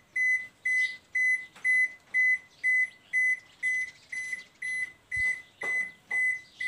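Toshiba AW-A750ST top-load washing machine sounding its error alarm: short, identical high-pitched beeps repeating evenly about twice a second. The beeping is how this model, which has no display for error codes, signals a fault that stops it washing.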